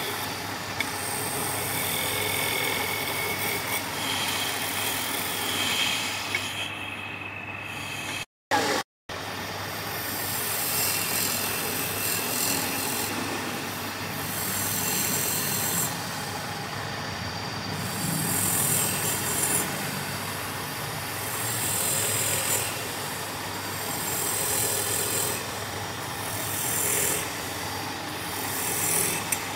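Wood lathe running with a steady low hum while a turning tool cuts the spinning wood, the hiss of the cut coming and going every second or two. The sound drops out briefly about eight seconds in.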